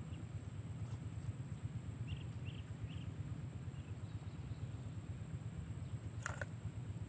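Outdoor pond-side ambience: a steady low rumble under a steady high whine, with a few short high chirps from small animals about two to three seconds in. About six seconds in there is a brief rustle as a hand goes into the plastic bait bucket.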